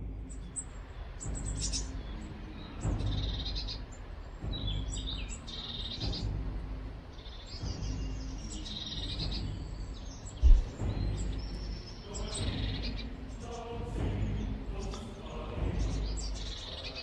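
Small songbirds chirping and calling repeatedly around a garden bird feeder, over a low rumble, with one loud thump about ten seconds in.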